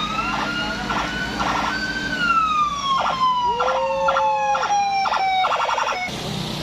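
A vehicle siren wails: it rises over about two seconds, then slowly falls, with a pulsing sound about twice a second on top. Heavy vehicle engines rumble steadily underneath.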